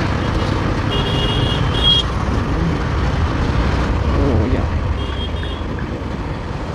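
Riding a Bajaj Pulsar NS200 through city traffic: the motorcycle's single-cylinder engine and road and wind noise make a steady low rumble. Short high beeps sound about a second in and again about five seconds in.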